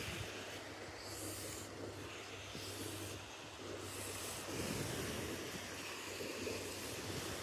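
Wind buffeting the microphone, with surf washing on the shore and a steady low hum underneath; the wind swells a few times near the end.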